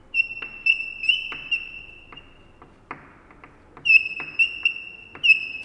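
Chalk squeaking on a blackboard while a word is written: a high, steady squeal in two spells of about two seconds each, the second starting about four seconds in, with sharp taps and clicks of the chalk through the strokes.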